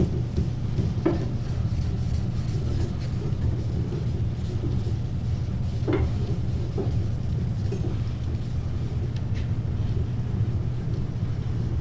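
Hand wet sanding of clear coat with 1500-grit paper on a soft pad, a soft rubbing with a few light knocks, over a steady low hum.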